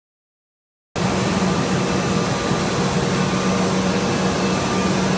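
Silence, then about a second in a PRO-24WDS horizontal fine wire drawing machine is heard running: a loud, steady whirring noise with a constant low hum.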